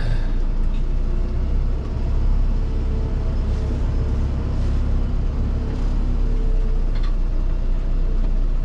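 Diesel engine of a forestry machine running steadily under load, a loud low rumble, with a faint whine coming and going over it.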